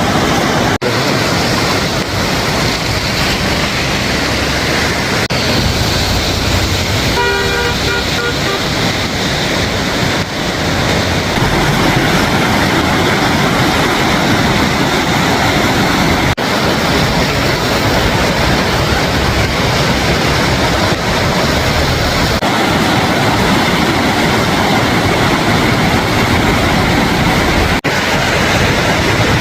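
Swollen floodwater in a river or mountain stream rushing, a loud, steady noise. A short horn-like tone sounds about seven seconds in.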